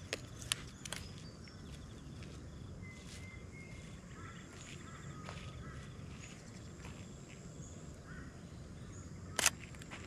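Small birds calling and chirping across an open grassy field: short whistled notes and chirps, over a low steady rumble. A few light clicks come in the first second, and a single sharp, loud click comes just before the end.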